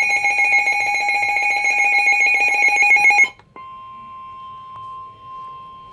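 Emergency Alert System warning tones. A loud electronic tone with a fast pulsing buzz runs for about three seconds and cuts off abruptly. After a short break, a quieter single steady alert tone begins.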